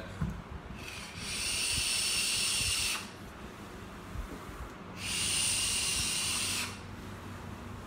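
Two draws, each about two seconds long, on a Uwell Valyrian sub-ohm vape tank firing at 70 watts: an airy hiss with a faint whistle as air rushes through the tank's wide airflow and over the coil. The first draw starts about a second in and the second about five seconds in.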